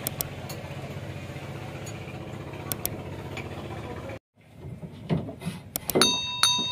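An engine runs steadily at idle, then cuts off abruptly a little after four seconds in. Metal clinks and knocks follow, with a ringing metallic strike about six seconds in.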